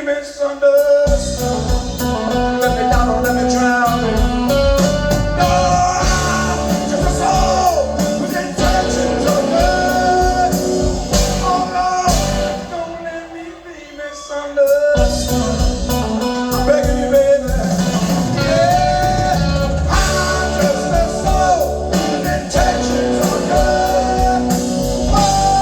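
Live blues-rock band playing, with a lead melody over bass and drums. Around the middle the bass and drums stop for a couple of seconds, then the full band comes back in.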